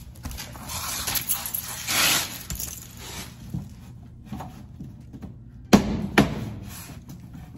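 Plastic rear diffuser being pulled off a car's bumper by hand: scraping and rustling of the plastic, then two sharp snaps half a second apart as its plastic retaining clips pop out.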